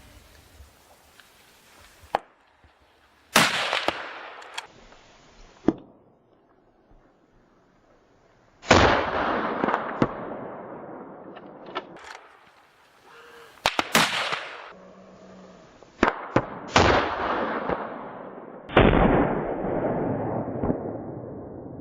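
A series of about six gunshots from hunting guns, spaced a few seconds apart, two of them close together near the middle. Each shot is followed by a long rolling echo that dies away over a second or more.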